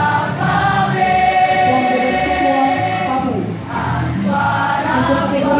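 A high-school choir singing, holding long notes, with a short break between phrases about three and a half seconds in.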